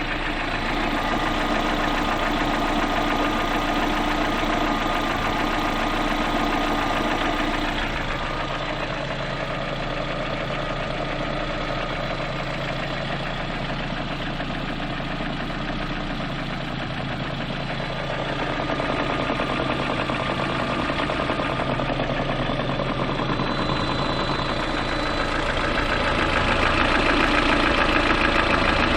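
Lada Priora four-cylinder petrol engine running warm, with a steady rhythmic knock beneath the engine note that the owner takes for piston knock. It grows louder again near the end.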